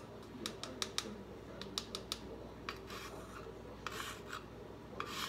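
Measuring spoon scooping and scraping inside a can of baking powder: a run of sharp clicks as the spoon knocks against the can, with short scraping rasps about four seconds in and again near the end.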